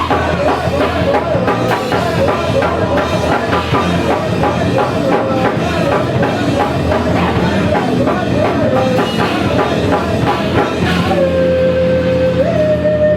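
Loud, fast rock music played on drums and bass. About eleven seconds in, the drum hits drop away and a held note rings on, stepping up in pitch once.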